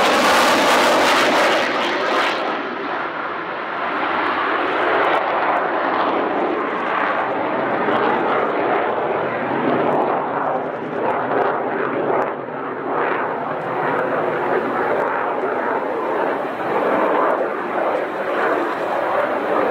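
Jet noise from a Lockheed Martin F-22A Raptor's twin turbofan engines passing overhead and banking away. The sharp high hiss fades about two seconds in, leaving a steady, duller jet noise as the fighter recedes.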